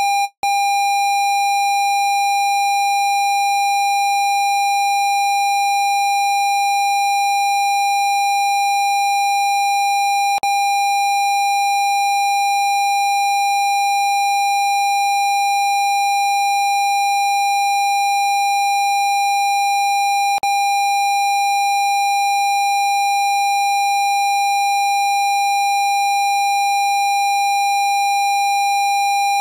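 Steady synthesized 802 Hz tone with fainter higher overtones, broken by a brief gap about half a second in and by faint clicks about every ten seconds.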